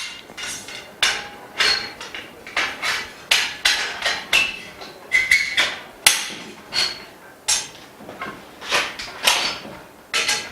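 Frame bars of a clean-room workbench frame being knocked into their joints: repeated sharp knocks with a brief metallic ring, about two a second at an uneven pace.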